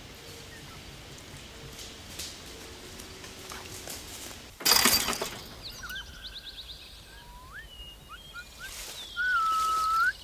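Woodland background with birds calling in short rising whistles and a quick trill. About halfway through there is a single loud crack, and near the end a long, loud whistled note that rises at its end.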